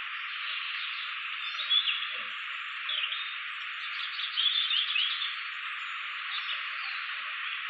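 Steady background chorus of calling animals: an even hiss with a few brief, louder chirps about two seconds in, at three seconds, and again between four and five seconds.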